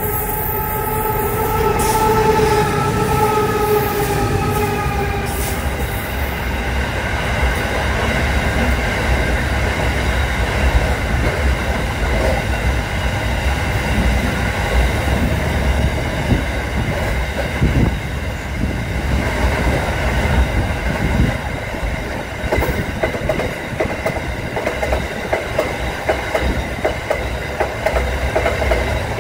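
An Aurizon diesel-electric freight locomotive sounds a multi-note horn, held until about five seconds in, as it comes through. Then a long train of mineral wagons rolls past close by, the wheels rumbling and clattering over the rails.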